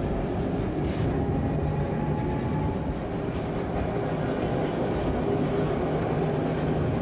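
Vintage wooden-bodied tram running along its rails, heard from inside the car: a steady running rumble with a low hum.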